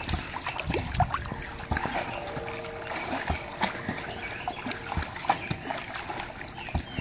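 Swimming-pool water splashing and sloshing as a dog and a person move through it, with sharp slaps of a ball being hit back and forth.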